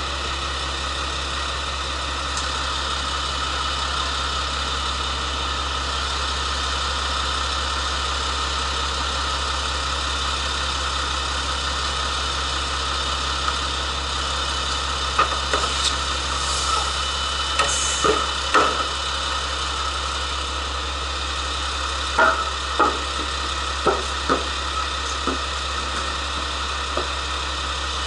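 KiHa 47 diesel railcar idling with a steady low hum. In the second half, a run of short knocks and clatter comes as the portable boarding ramp is handled and set down at the door.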